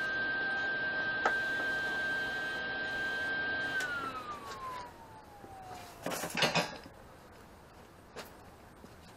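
An electric power tool's motor runs with a steady whine, is switched off about four seconds in and winds down, falling in pitch until it fades. A loud clatter follows a couple of seconds later, with a single click near the end.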